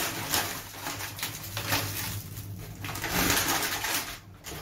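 Powdered detergent chemicals shaken from a plastic bag into a plastic basin: the bag rustles and the granules hiss onto the pile, loudest about three seconds in.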